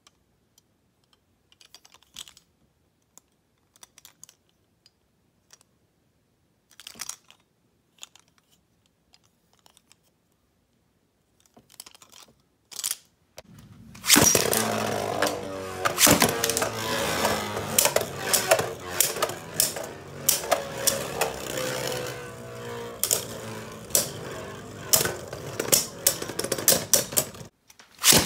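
Light plastic clicks as Beyblade Burst tops are handled, then a launch about halfway in and the tops whirring in a plastic stadium, their tone slowly falling, with many irregular sharp clacks as they collide. The sound cuts off abruptly near the end, and another launch follows straight after.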